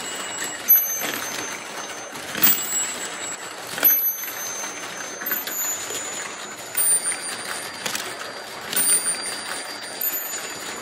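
Marbles rolling and clattering steadily through a GraviTrax plastic marble run, with sharp clicks every second or two and short, high metallic rings.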